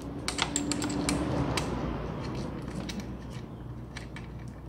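Light clicks and taps of metal and plastic parts being handled and fitted together as a chainsaw adapter is mounted on an angle grinder. They come in a quick cluster over the first second and a half, then sparsely.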